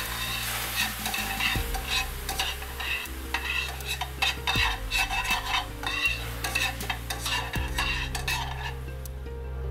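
Metal tongs scraping and clinking against a stainless steel skillet while onions and garlic sizzle in white wine, scraping the browned bacon bits off the pan bottom to deglaze it. The scraping stops and the sizzle fades shortly before the end.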